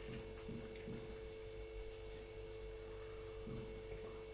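A faint steady hum, a held tone that does not change, with a few soft low sounds under it.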